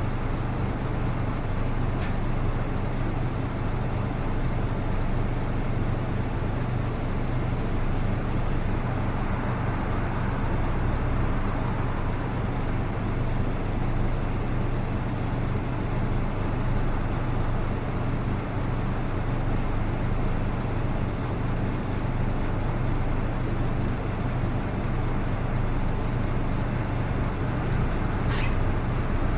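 Cabin sound of a PKG-RA274MAN diesel city bus running steadily: an even engine drone with a low hum. The uploader singles this bus out because its engine sound differs from other RA-series buses. A brief sharp squeak comes about two seconds in and another near the end.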